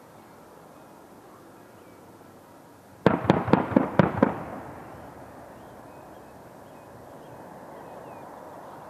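A burst of 30 mm cannon fire from a Mi-24P attack helicopter: about six sharp bangs in quick succession over a little more than a second, about three seconds in, with a rumbling echo trailing off. A steady rush of distant helicopter noise runs underneath.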